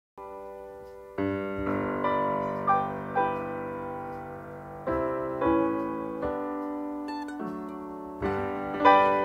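Slow instrumental music of piano notes and chords, each struck and left to fade, starting just after the opening moment of silence.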